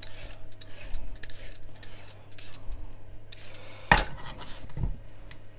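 Hand vegetable peeler scraping along a raw sweet potato in repeated short strokes, with a sharp knock about four seconds in and a dull thump just after.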